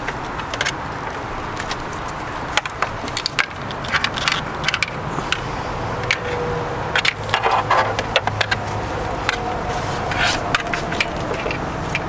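Irregular clicks and light knocks, scattered over several seconds, over a steady background hum.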